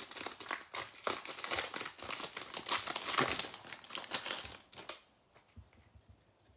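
Plastic wrapper of a Donruss baseball-card value pack crinkling as it is pulled open by hand and stripped off the cards, stopping about five seconds in.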